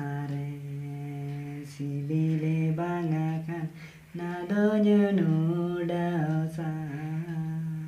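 A man singing a Santali lagene song unaccompanied, in long held notes over two phrases with a short break about four seconds in.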